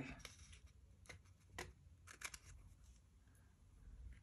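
Scissors snipping off the excess end of a strip of washi tape: several short, faint snips over the first couple of seconds.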